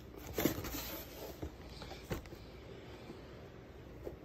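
Faint handling noise of hands fumbling with a kit's packaging: a few soft rustles and scrapes, the clearest about half a second in and again about two seconds in.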